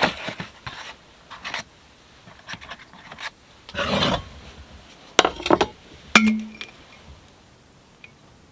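Scattered handling noises: rubbing, a few clicks and knocks, and one short clink with a brief ring a little after halfway.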